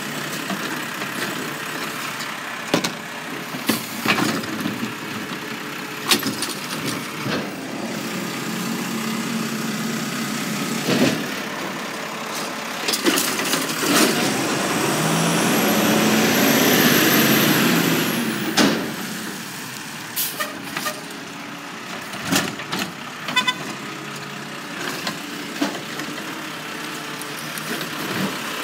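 Automated side-loader garbage truck emptying a trash cart, with a series of sharp knocks and bangs as the arm works the cart. The truck's engine then pulls away, swelling loudest a little past halfway through as it goes by, with a high whine, and fades afterwards.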